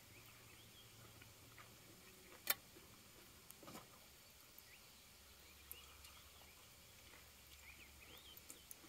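Near silence, with a few faint, short high chirps and small clicks scattered through it. One sharper click comes about two and a half seconds in.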